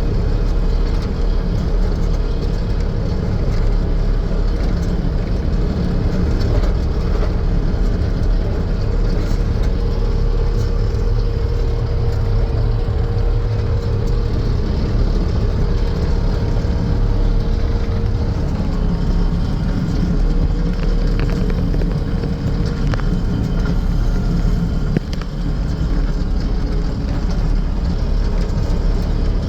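Four-cylinder diesel engine of a Bobcat T770 tracked skid steer running steadily, with a constant tone held over the engine sound.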